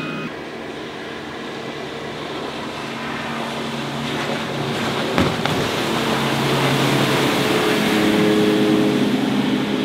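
Mariah SC21 cuddy boat's engine running at speed as the boat passes, with the rush of its hull and spray on the water; it grows louder toward the end. A brief knock about five seconds in.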